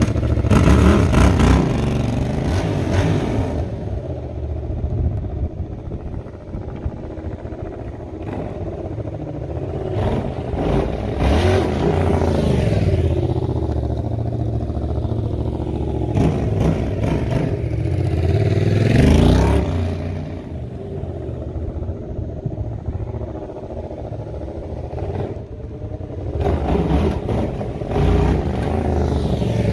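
Yamaha XSR700's parallel-twin engine through a lightly modified stock exhaust, running and revving as the bike rides off and away. It rises and fades as the bike moves about, with revs that climb and fall, loudest about nineteen seconds in, and grows louder again near the end as it comes back close.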